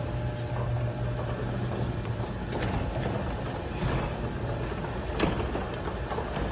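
A motor running steadily with a low hum, with a few light clicks about two and a half, four and five seconds in.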